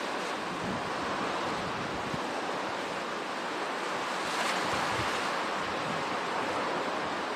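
Hurricane wind and driving rain, a steady rushing that swells with a stronger gust about four and a half seconds in.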